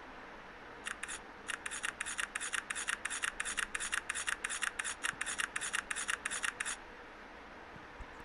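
Smartphone camera shutter sound played through the phone's speaker as a 16-shot burst fires: a rapid, even run of sharp clicks, about four a second, lasting some six seconds.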